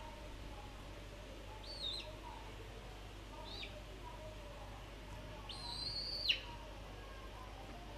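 Young chicken peeping: three high-pitched peeps, the last one held for nearly a second.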